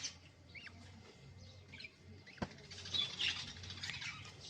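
Young budgerigar chicks giving faint, short high squeaks and chirps, with a single sharp click about halfway through.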